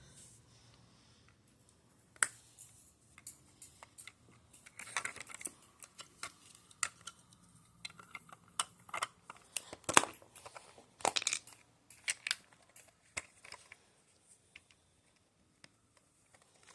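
Lego Technic plastic pieces clicking and clattering as they are handled and pressed together, in irregular clicks that stop a few seconds before the end.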